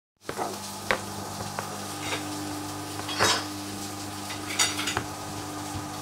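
Hoover Dynamic front-loading washing machine's drum turning slowly with a steady motor hum, while wet, foamy laundry sloshes and drops inside it in several short splashing bursts. The machine is struggling with a very unbalanced load and a suds lock, excess foam that holds up its spin.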